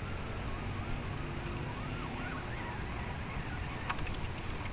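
Wind rumbling on the microphone, with a faint tone wavering up and down in the background and a single sharp click near the end.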